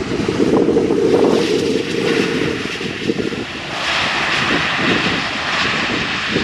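Jet engines of a Garuda Indonesia Airbus A330 at touchdown and during the landing roll. A steady low rush at first, then a louder, hissier rush from about four seconds in.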